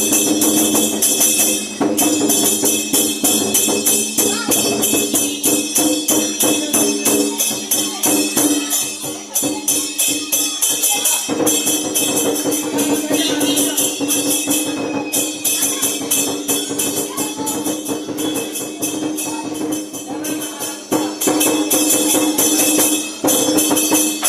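Chinese lion dance percussion playing at full pace: rapid clashing cymbals over ringing gongs and a drum beat. It thins out briefly about halfway through, then comes back in full.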